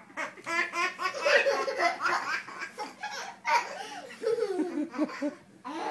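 A baby laughing hard in repeated bursts of belly laughter.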